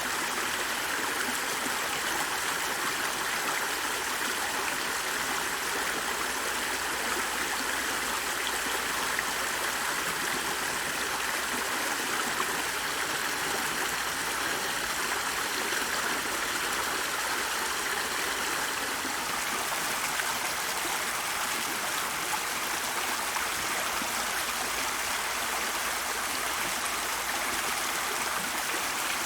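Steady rush of running water, even and unchanging throughout.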